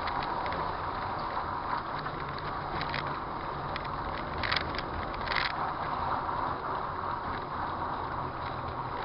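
A follow car driving slowly on a brick-paved street, heard from inside: steady engine and tyre noise, with a couple of brief ticks about halfway through.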